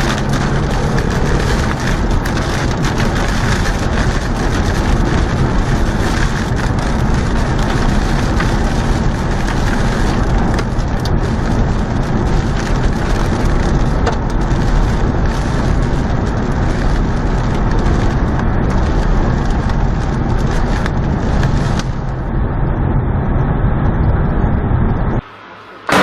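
Violent storm noise: a loud, steady rush of wind buffeting the microphone. It thins out about 22 seconds in and cuts off abruptly near the end.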